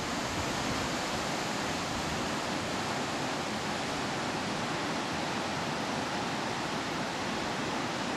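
Water rushing through the dam: a steady, even roar with no breaks.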